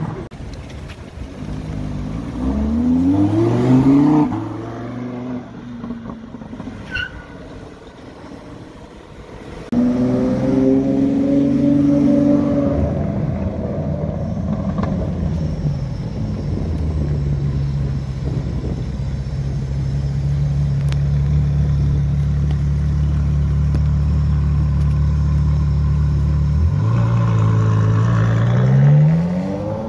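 Supercar engines: one car revs up and accelerates away in the first few seconds. Then the V12 of a Mansory Stallone (Ferrari 812 Superfast) runs loud and steady at low revs close by for about ten seconds, and revs up rising in pitch as it pulls away near the end.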